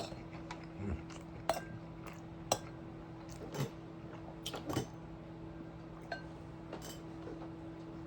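Eating utensils clinking and tapping against dishes during a meal: a dozen or so light, irregular clinks, over a steady low hum.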